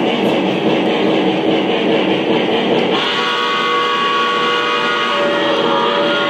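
O scale model Santa Fe 4-8-4 Northern steam locomotive running on three-rail track, with a steady rushing running noise. About three seconds in, its onboard sound system starts a held multi-note steam whistle.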